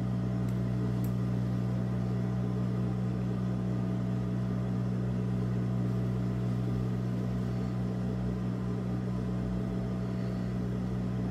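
Steady low hum of an idling industrial sewing machine's motor, running without stitching.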